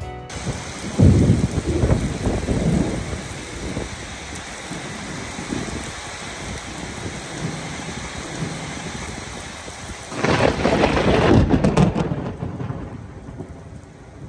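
Heavy hurricane rain falling steadily, with two loud low rumbles, one about a second in and a longer one about ten seconds in. The rain eases in the last couple of seconds.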